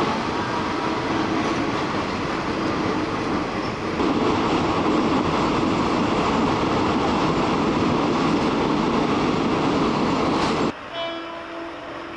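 Steady running noise of a passenger train's carriage in motion, cutting off abruptly near the end. After it, more quietly, a train horn sounds briefly from an approaching diesel locomotive.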